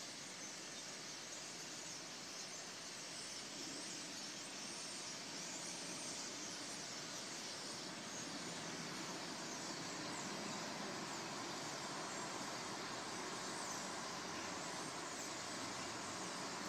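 Steady outdoor ambient noise, a hiss-like haze that slowly grows louder, with faint short high chirps over it.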